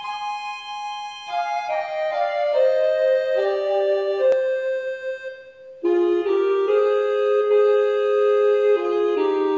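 Instrumental song introduction on keyboard: held organ-like chords under a melody that steps slowly downward. The music fades briefly a little after five seconds in and comes back louder about a second later.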